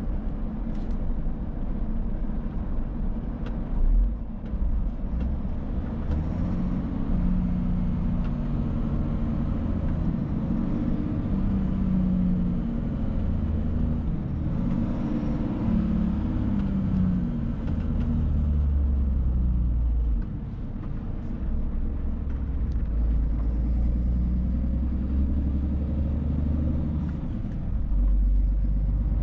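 Cab interior sound of a Scania Super 500 S tractor unit under way: its 13-litre six-cylinder diesel running steadily with tyre and road rumble, the engine note shifting in pitch as the load changes. A short thump about four seconds in.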